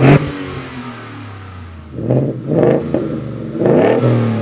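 Ford F-150's 5.0L Coyote V8 revved in short blips from idle: a sharp blip at the start, a steady lower stretch, then three rising-and-falling revs in the second half. The later revs come through a Roush single side-exit exhaust with a small straight-through canister muffler.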